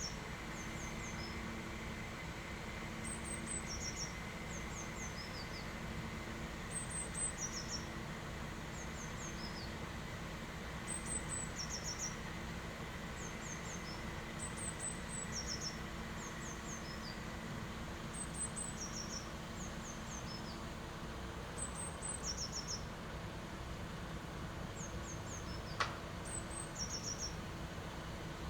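A small songbird repeats a short, high chirping phrase about every four seconds over a steady low engine hum. One sharp click comes near the end.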